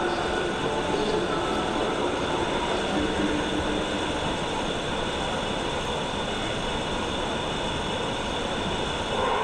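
Steady background hubbub of a busy exhibition hall: distant crowd chatter mixed into a constant din, with no distinct single event.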